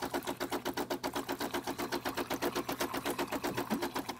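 DeLonghi Magnifica espresso machine's vibratory pump running in rapid, even pulses as it pushes hot water out through the spout; the pulsing cuts off right at the end.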